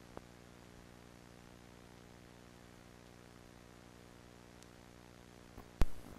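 Steady low electrical hum with faint static hiss, like analog video-tape playback. There is a small click just after the start, and a sharp, loud click near the end is followed by a brief crackle.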